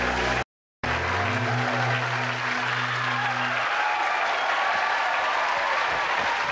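Studio audience applauding over the last held notes of the theme music, which stops a little over halfway through while the clapping goes on. All sound cuts out briefly about half a second in.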